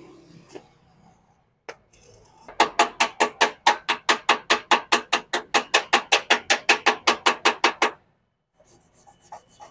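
Steel wire brush scrubbing slag off a fresh stick-weld bead on a steel door frame, in quick even strokes, about six a second, for around five seconds.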